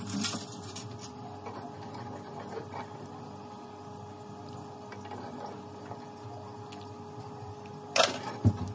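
Steady hum with faint scattered pops over a pot of simmering palm nut soup. About eight seconds in there is a sharp knock, a utensil hitting the pot, followed by a couple of dull thumps.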